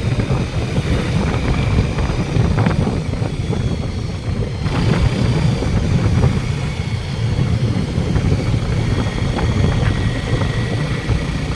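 Motorcycle running at road speed, its low engine and road rumble mixed with wind buffeting the microphone; a few faint ticks and knocks show through.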